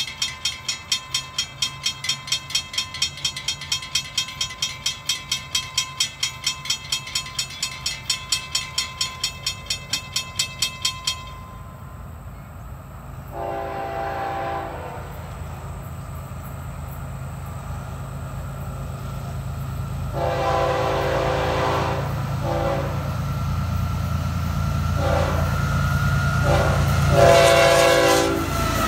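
Railroad crossing bell ringing rapidly, about four strikes a second, then stopping about eleven seconds in. Then the horn of an approaching Florida East Coast Railway GE ES44C4 locomotive sounds a series of long and short blasts for the crossing, over a low engine rumble that grows louder as the train nears.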